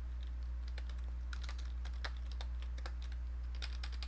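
Typing on a computer keyboard: a fast, irregular run of keystroke clicks over a steady low electrical hum.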